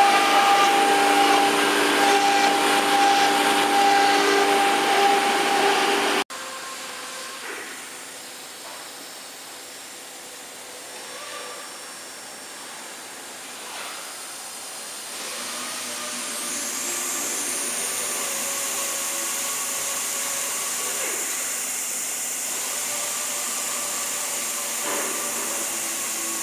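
JCUT 1330 CNC wood router running, its spindle and dust-extraction hose working over sheet board: a loud, steady whir with held tones. About six seconds in it cuts suddenly to a quieter machine hum, and a steady high hiss comes in at about sixteen seconds.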